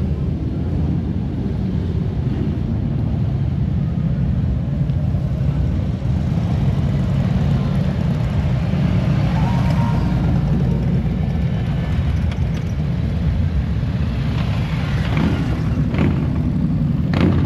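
Motorcycle engines running steadily, with a short sharp crack near the end.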